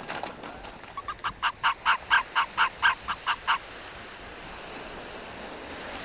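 Arctic fox giving a rapid series of about a dozen short, clucking yaps, about four a second, lasting some two and a half seconds.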